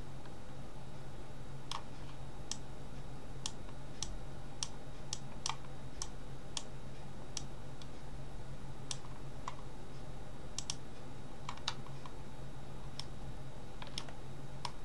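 Computer mouse and keyboard clicking: a couple of dozen sharp, irregularly spaced clicks while shift-clicking to select mesh vertices, over a steady low hum.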